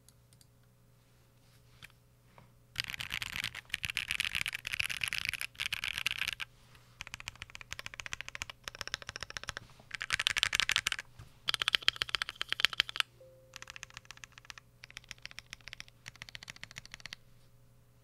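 Fast typing on an OwLab Voice65 mechanical keyboard with lubed C³ Tangerine V2 linear switches, a polycarbonate plate and PBT keycaps. It comes as rapid clacking in bursts of a second or so with short pauses, starting about three seconds in after a couple of faint clicks, and stops shortly before the end.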